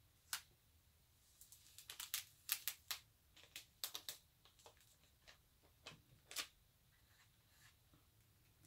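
Transfer tape being peeled off vinyl lettering on a painted wooden board: faint, irregular ticks and clicks, bunched in the first half with a few more later.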